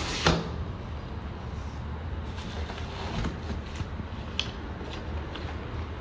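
Cardboard box and plastic-wrapped vacuum parts being handled during unboxing: rustling and small knocks, with one louder scrape just after the start, over a steady low hum.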